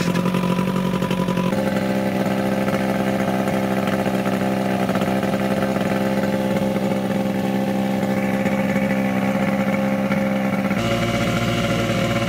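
Small outboard motor running steadily just after being started, freshly repaired with a new impeller and a reshaped drive shaft. Its note shifts slightly about a second and a half in and again near the end.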